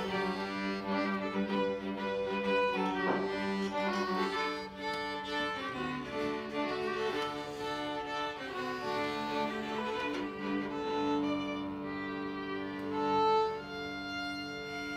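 Violin and cello music from a small string band, playing a melody in long held notes.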